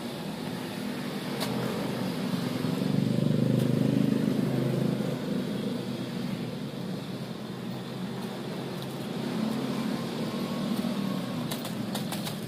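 A steady low hum that swells louder about three to five seconds in, with a few sharp clicks near the end.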